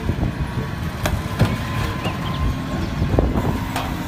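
Large forklift's engine running as it moves a load of lumber packs, with several sharp knocks and clunks.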